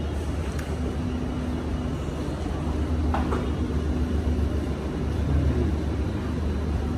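Steady low rumble of busy restaurant room noise, with a faint hum over it and one brief clink about three seconds in.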